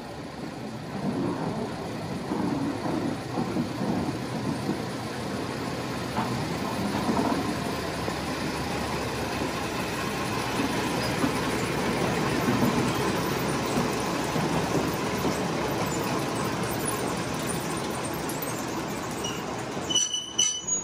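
Baguley-Drewry diesel locomotives double-heading a narrow-gauge train slowly past and drawing to a halt: a steady engine and wheel-on-rail rumble, with a few sharp clicks near the end.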